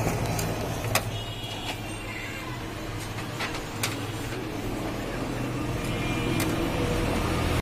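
Toshiba e-Studio 2309A photocopier running an auto-duplex copy job: a steady low motor hum with a few sharp clicks as sheets are fed and ejected into the output tray.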